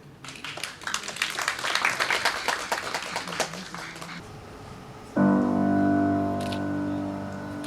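A few seconds of dense crackling, clattering noise, then about five seconds in the opening piano chord of the piece starts and is held, slowly fading.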